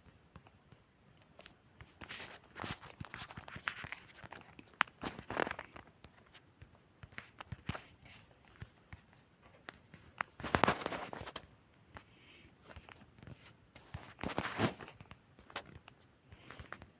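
Footsteps crunching unevenly, with rustling and scuffing noises that swell in several irregular bouts.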